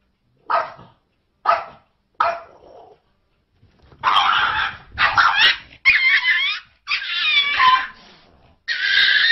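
A small dog barking: three short, sharp barks in the first three seconds, then from about four seconds in a run of longer, louder barks and yelps that waver in pitch.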